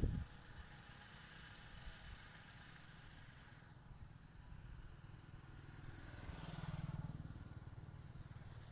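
A short thump at the very start, then low steady outdoor rumble. A passing engine rises and fades about six to seven seconds in.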